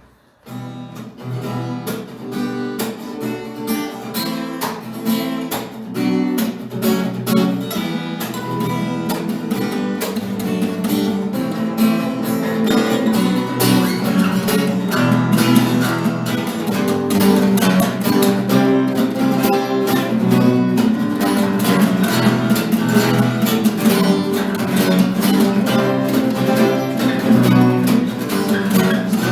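Instrumental song introduction on acoustic guitar, chords strummed and picked with no singing. It starts just after the opening and grows gradually louder.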